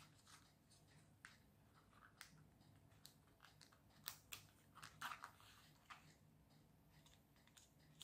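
Faint clicks and scraping of thin plastic kit pieces being handled and slotted together. A cluster of louder clicks and rustling comes about four to five seconds in.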